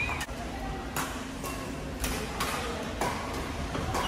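Badminton rackets striking a shuttlecock during a doubles rally: several sharp hits about a second apart, over the hall's steady background hum and chatter.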